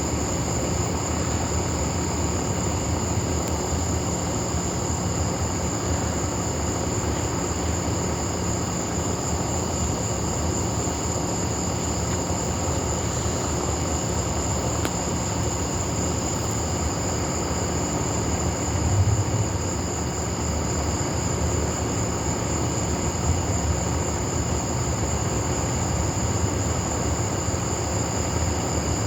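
A steady high-pitched chorus of night insects over a continuous low rumble, with a brief louder swell about two-thirds of the way through; no thunder.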